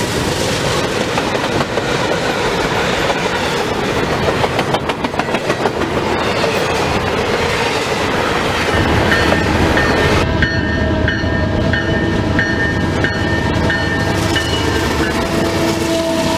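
Diesel-hauled freight train passing close at speed: steady rumble and clatter of steel wheels over the rails as the locomotives and double-stack container cars go by. About ten seconds in the sound turns deeper, with a steady tone and a faint ring repeating about one and a half times a second.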